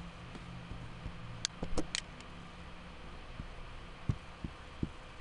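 A few computer mouse clicks and keyboard taps over a steady low hum, with a cluster of sharp clicks about a second and a half to two seconds in and a couple of softer knocks later.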